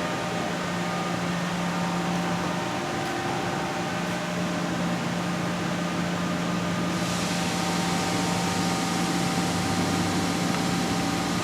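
Steady machine-shop background hum with several steady tones, from running equipment or ventilation. About seven seconds in, a hiss joins in the upper range.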